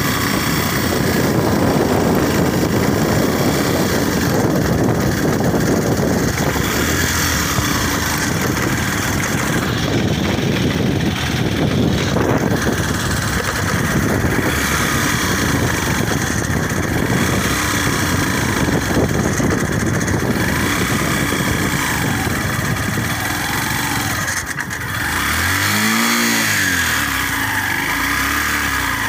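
Motorcycle engine running while under way on a brick-paved track. Near the end its note dips and climbs again briefly.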